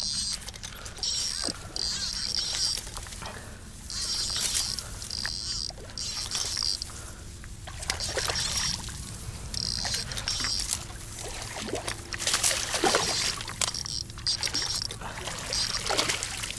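Water splashing and sloshing in shallow water as a shot fish is brought in, in uneven bursts. A high buzz pulses on and off every second or so behind it.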